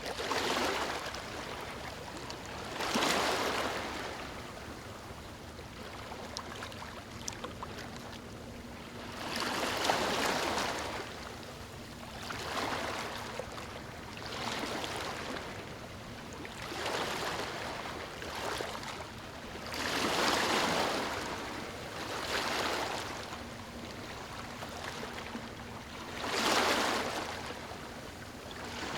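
Moving water rushing and washing in repeated swells, each rising and falling over a second or two, about every two to three seconds, over a steady background wash.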